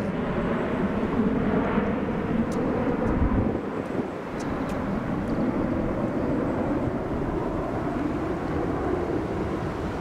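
Steady, rumbling outdoor roar with no clear single source, from the open air around a golf green. Two faint ticks sound in the first half.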